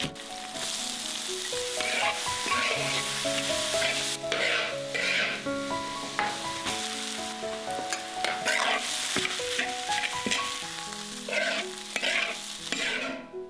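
Rice frying in a hot wok, sizzling steadily while a spatula scrapes and tosses it in repeated strokes. The sizzling stops just before the end.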